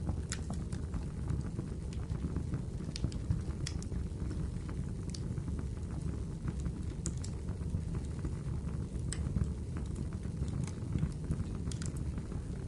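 Wood fire burning in a fireplace: a steady low rush of flames with scattered sharp crackles and pops.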